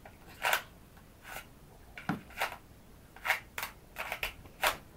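A toy sword being swung and handled, making about ten short swishing or rustling noises at uneven intervals.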